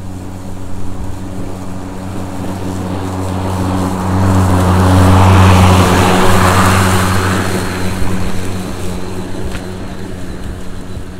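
Ryobi 40-volt brushless cordless self-propelled lawn mower running and cutting grass, a steady hum. It grows louder as the mower passes close by about five seconds in, then fades as it moves away.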